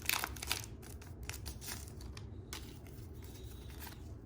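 Foil booster-pack wrapper crinkling as it is pulled apart, loudest in the first second, then fainter rustling and light ticks of the pack and cards being handled.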